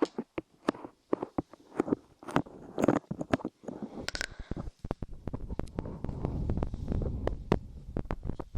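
Light clay pressed and squished on a binaural microphone's ears: sticky crackling clicks and taps, then from about four seconds in a dense, muffled low rustle as the clay covers the mic, with clicks still sounding over it.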